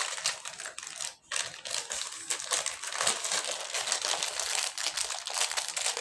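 Plastic bag crinkling and rustling as it is handled, a dense, continuous crackle.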